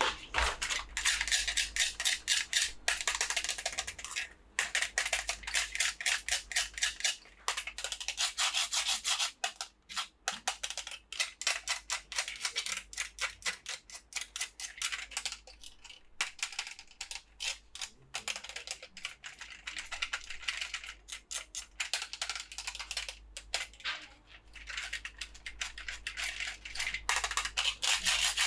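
Hands opening and handling dinosaur toys and their packaging: a dense run of rapid scratchy rubbing and small clicks, with short breaks.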